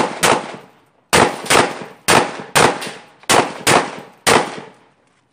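Glock 17 9mm pistol firing a fast string of roughly a dozen shots, mostly in quick pairs about a second apart, the string ending about four and a half seconds in.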